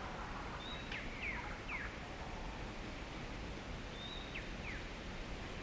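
Bird calls in two bouts, about a second in and again about four seconds in: each bout is a short high note followed by two or three quick falling notes, over a steady background hiss.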